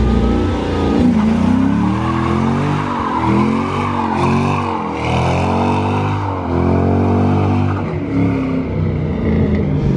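Ford Mustang GT doing a burnout: the engine revs up and down over and over while the spinning rear tyres squeal against the pavement.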